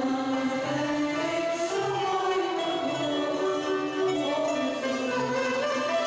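Turkish classical music ensemble playing an instrumental passage: plucked strings and violin carry a melody over a steady low beat.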